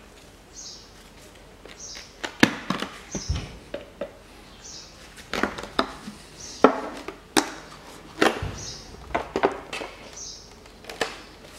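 Irregular sharp knocks and clicks of tools on the valve cover of a Mitsubishi 4B10 engine as it is pried loose and lifted off the cylinder head, about a dozen strikes.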